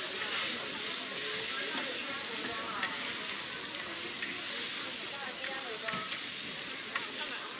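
Skewered squid sizzling on a hot flat iron griddle while a metal spatula presses and scrapes them across the plate. A few sharp clicks of the spatula on the iron stand out from the steady sizzle.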